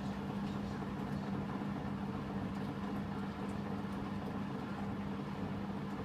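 Samsung top-load washing machine running mid-cycle, its drum turning a load of towels, with a steady motor hum.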